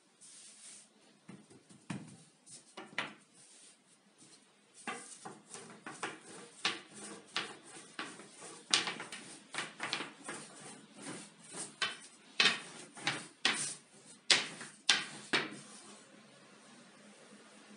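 Long thin wooden rolling pin rolling and knocking on a countertop as a ball of dough is rolled out into a large thin round: a few soft knocks early, then a quick, irregular run of clacks and rolling rubs from about five seconds in that stops near the end.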